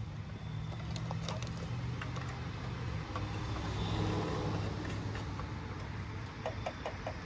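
An engine running steadily at idle, a low even hum.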